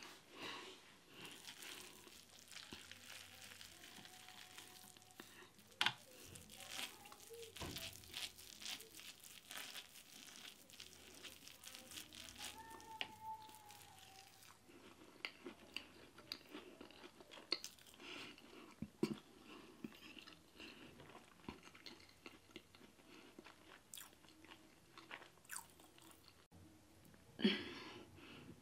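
Close-up mouth sounds of chewing and eating injera with stews: soft chewing, smacking and small clicks, dense in the first half and sparser later, with a short louder sound near the end.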